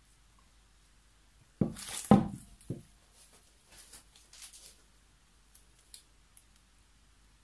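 Handling noise as a stretched canvas is lifted, tilted and shifted on a plastic-sheeted table: a cluster of bumps and rustles about one and a half seconds in, the loudest near two seconds, then faint rustling and a few small clicks.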